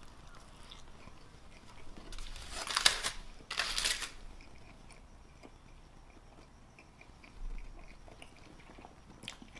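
Close-up chewing of a mouthful of cheese-covered fries. About two seconds in come two short bursts of foil crinkling and scraping as a fork digs into fries in an aluminium-foil wrap.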